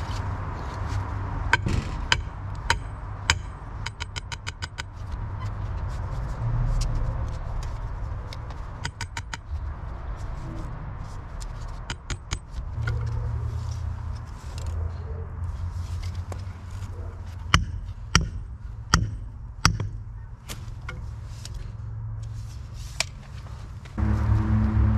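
Sledgehammer striking a steel rebar stake to drive it into the ground: sharp single blows, a quick run of lighter taps a few seconds in, and a series of hard blows later on. Music comes in near the end.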